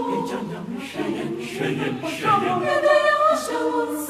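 A choir singing a Twi worship chorus in several voices, with the notes held and shifting between phrases.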